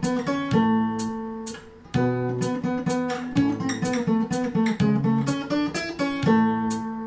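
Acoustic guitar music: strummed and plucked chords with a steady beat.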